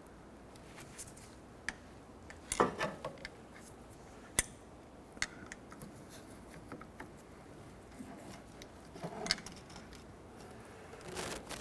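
A small pick prying at the plastic release tabs of an ABS wheel speed sensor connector, and the connector being wiggled off its socket: a handful of light, irregular clicks and taps.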